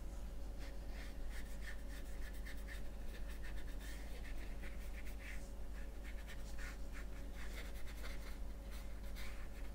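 Watercolor paintbrush stroking and dabbing on watercolor paper: a run of soft, irregular scratchy brush strokes over a steady low hum.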